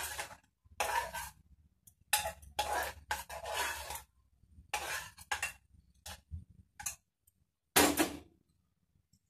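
A metal ladle stirring and scraping through thick boiled masoor dal in an aluminium pressure cooker, in separate strokes with short gaps. One louder sound comes near the end.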